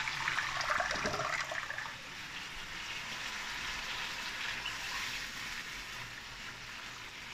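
Water poured from a bowl into a hot wok of browned beef curry. It is louder for about the first two seconds, then settles into a steady hiss from the pan.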